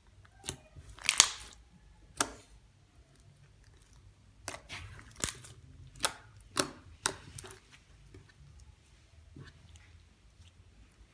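Slime being squished and pressed by hand, giving sharp bubble pops at uneven intervals, with a quick run of them around the middle.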